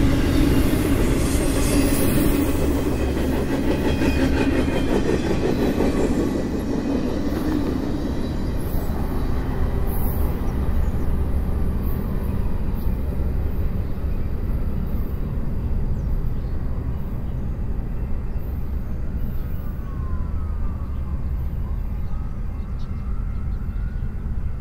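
Tail end of a double-stack intermodal freight train rolling past, its wheels and cars clattering over the rails. After about seven seconds the clatter fades, leaving a low rumble as the train recedes.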